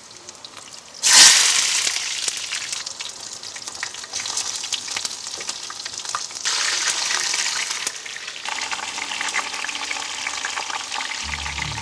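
Food sizzling in hot fat: a sudden loud burst of sizzling about a second in that slowly dies down, a second rise about six and a half seconds in, and crackling hiss between and after.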